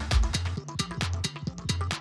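Background electronic music with a steady drum-machine beat and bass line.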